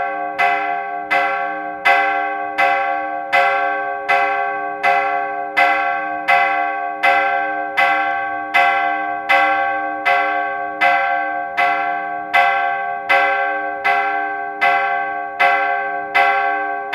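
Church bell ringing steadily, struck about once every three-quarters of a second, each strike ringing on into the next.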